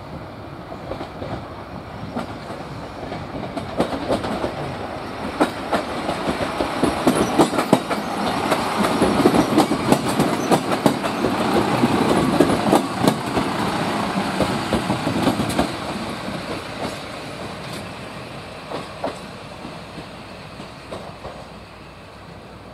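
Tsugaru Railway Tsugaru-21 type single-car diesel railcar passing: engine running and wheels clacking over the rail joints. It grows louder as it approaches, is loudest about halfway through, then fades as it moves away.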